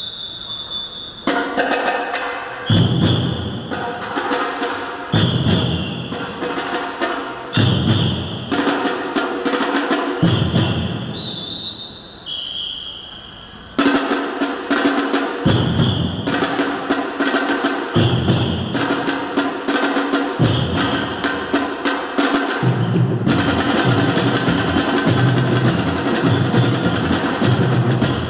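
Drum troupe beating large waist-slung drums together, in loud groups of strokes every couple of seconds, each set off by a short high whistle blast. About twelve seconds in the drumming drops back briefly, then runs on without the whistle and grows busier near the end.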